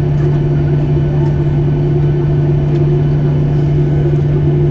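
Steady droning hum inside a Boeing 737 cabin parked at the gate, with a strong low tone running under it: the cabin air-conditioning running after the engines have been shut down.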